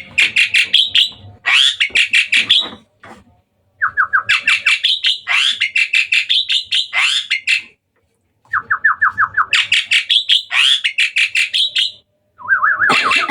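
Hybrid jalak suren (Asian pied starling) singing loudly and energetically. It sings in phrases of a few seconds with short pauses between them, each opening with a quick run of rising notes and going on as a rapid string of sharp, repeated chirps.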